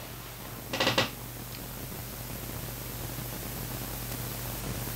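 Steady hiss with a low hum: microphone room tone, broken about a second in by a brief voiced sound from the narrator.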